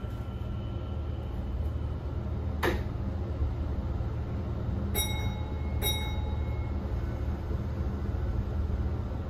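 Low, steady rumble of a Kintetsu 19200-series limited express railcar, heard inside the car by its closed doors. A sharp click comes about two and a half seconds in, and two short pinging tones follow about five and six seconds in.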